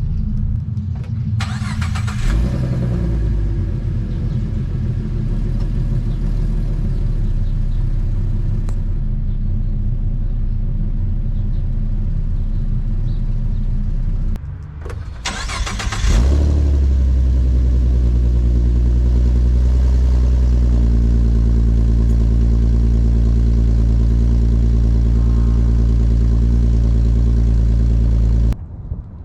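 A petrol car engine started and idling in two separate clips. The first catches about two seconds in and runs with a rougher idle. The second starts about sixteen seconds in and settles into a louder, steady idle.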